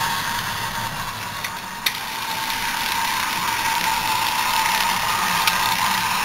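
Toy train locomotive's small electric motor and gears whirring steadily as it runs round its track, with a sharp click about two seconds in and another near the end.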